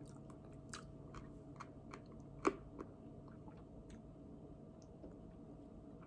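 Quiet wet mouth clicks and chewing from eating barbecue chicken wings and sucking sauce off the fingers, with one sharper smack about two and a half seconds in.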